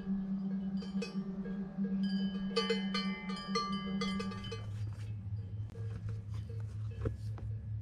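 Cowbells on grazing cows clanking irregularly, busiest around the middle and thinning out in the second half, over a steady low hum that drops in pitch about halfway through.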